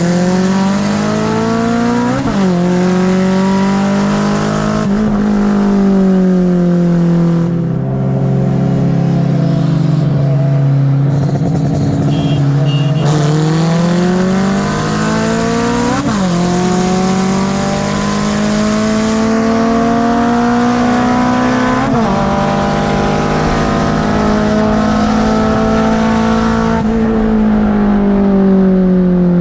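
Honda K-series four-cylinder engine pulling hard through the gears: its pitch climbs and drops sharply at each upshift, about 2, 16 and 22 seconds in, with steadier stretches and easing off between.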